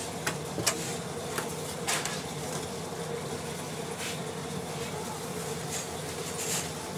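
Several light clicks and knocks as a CRT television's circuit board and its wiring are handled and turned over, over a steady background hum.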